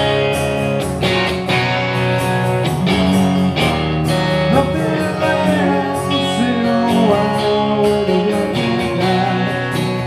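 An acoustic guitar and a Telecaster-style electric guitar playing live together: a strummed rhythm with lead lines and bent notes over it.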